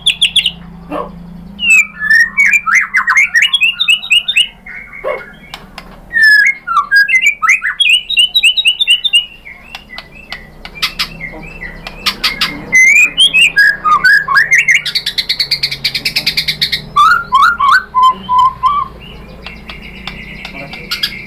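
White-rumped shama (murai batu) singing in long, fast bursts of varied whistled notes, quick up-and-down sweeps and sharp clicks, with short pauses between phrases.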